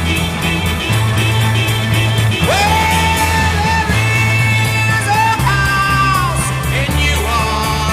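Rock music playing, with long held lead notes that slide up into pitch over a steady bass line.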